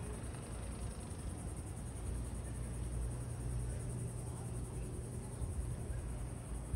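Faint outdoor street ambience: a low steady rumble with a thin high hiss and no distinct event.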